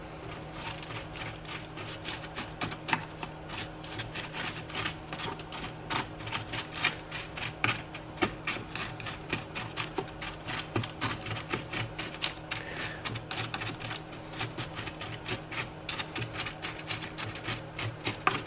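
Crushed activated carbon pellets rattling and clicking against each other and the 3D-printed plastic filter chamber as they are spread and settled by hand: a dense, irregular patter of small clicks, over a faint steady low hum.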